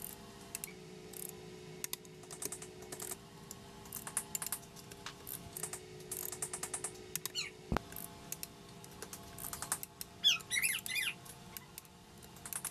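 Ratcheting clicks of a torque wrench tightening the cylinder head bolts of a Yamaha 701 two-stroke jet ski engine in sequence, on the first 16 lb pass. There is one sharper click about 8 s in, a few brief squeaks around 10 s, and a faint steady hum underneath.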